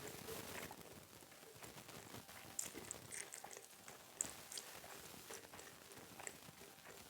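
Close-miked eating mouth sounds: soft chewing with scattered sharp clicks and smacks, the loudest a little after two and a half seconds in and again about four seconds in.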